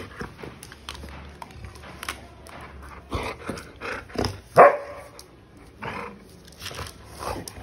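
Golden retriever barking at a small handheld electric fan, a run of barks starting about three seconds in, the loudest near the middle.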